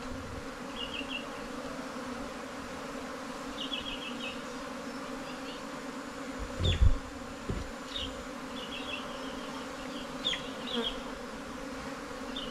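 Steady humming drone of a honey bee colony stirred up as its underground nest is dug open and smoked. Short high trilled chirps come now and then, and there is a thump about seven seconds in.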